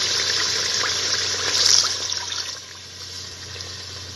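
Water being poured into a pot of fried masala and yogurt, a loud gushing hiss that stops about two and a half seconds in.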